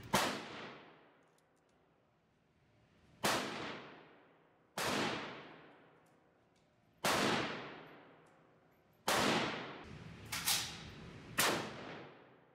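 Rifle shots, seven in about twelve seconds at uneven spacing, each sharp report followed by a long echoing decay.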